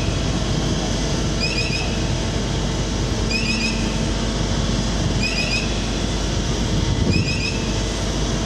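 Steady low rumble of a large ferry's engines and deck machinery. Over it, a group of three quick high rising chirps repeats about every two seconds.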